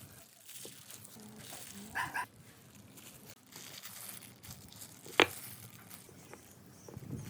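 Low background noise, broken by a short double call about two seconds in and a single sharp knock about five seconds in.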